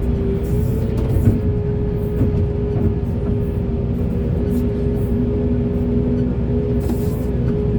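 Diesel engine of heavy earthmoving machinery running steadily under load, a deep rumble with a steady whine held over it.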